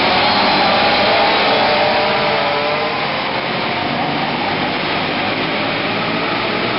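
Small racing engines of several cars running around an indoor dirt track, a steady din with a light engine whine that falls slightly in pitch during the first few seconds, heard inside a large arena hall.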